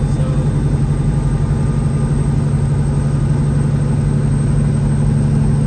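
Semi truck's diesel engine running steadily with a low, even drone, heard from inside the cab.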